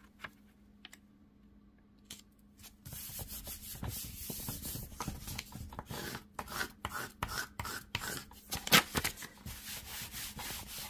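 A hand rubbing and smoothing a freshly glued sheet of paper down onto a journal page: quick, irregular papery rubbing strokes starting about three seconds in, with one sharp click near the end.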